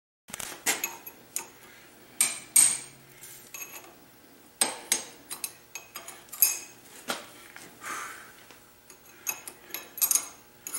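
Steel hammer striking a torch-cut ball bearing on an Ingersoll Rand 242 air-compressor crankshaft held in a vise, knocking the bearing off. Sharp metallic clanks with a bright ring, in irregular clusters of one to three blows, well over a dozen strikes in all.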